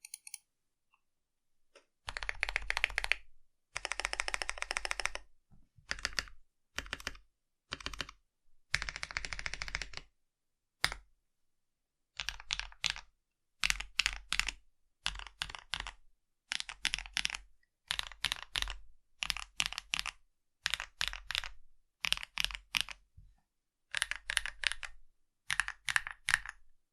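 Typing on a modded Redragon K552 mechanical keyboard fitted with Akko Lavender Purple switches, PE foam, tape and sound deadener. Fast runs of keystrokes lasting a second or so come first, then shorter clusters of presses separated by brief pauses.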